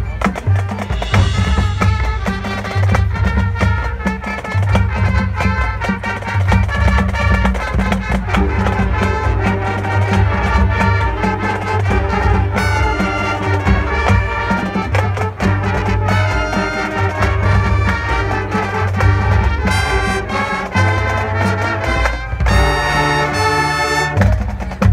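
High school marching band playing brass over drums with a steady low beat, moving into a held chord with high notes near the end.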